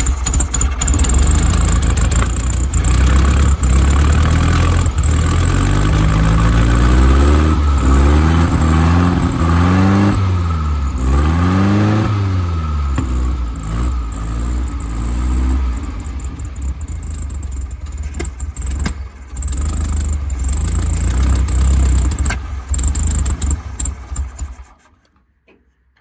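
Air-cooled VW flat-four engine running just after its first start following a rebuild, fed by fuel primed into the carburettor. Its revs rise and fall several times in the middle, then it cuts out near the end. The owner says it just needs a tune-up.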